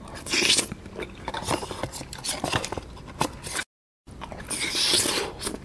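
Close-up eating sounds of agar-agar jelly: a wooden spoon scraping and scooping the set jelly out of a drink carton, with wet slurps and squishing chews in the mouth. A brief stretch of dead silence falls a little before four seconds in.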